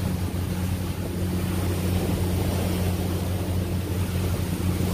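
Boat engine running with a steady low drone, under a constant rush of wind and water.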